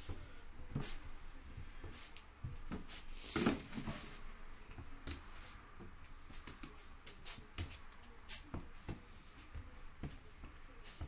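Yorkshire terrier puppy scrabbling and rubbing itself on a bath towel: irregular rustling and scattered small clicks, with a louder rustle about three and a half seconds in.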